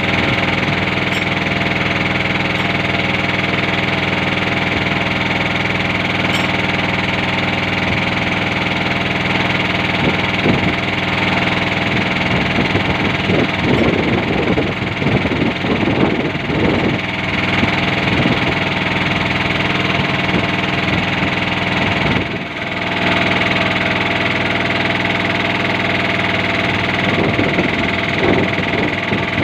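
Boat engine running steadily at a constant speed, with a brief dip in level about two-thirds of the way through.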